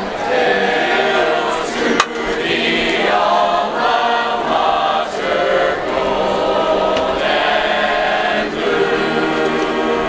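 A large group of voices singing a song together in unison, with held notes, and no instruments playing. A single sharp click about two seconds in.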